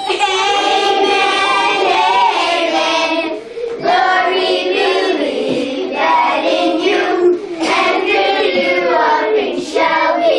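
A class of children singing together, with long held notes and brief pauses between phrases.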